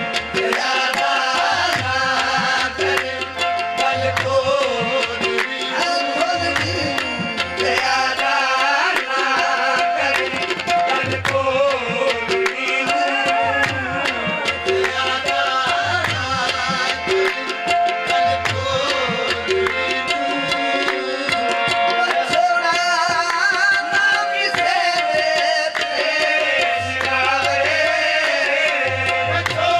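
Live qawwali: a singer's wavering melody over a steady tabla beat, with held notes underneath.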